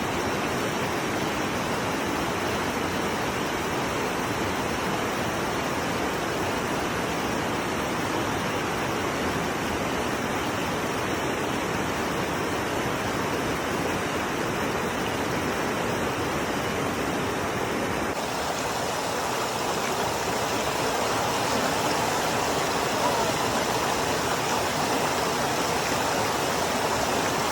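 Steady rush of flowing water. About two-thirds of the way through the sound changes abruptly and runs slightly louder, with more high hiss.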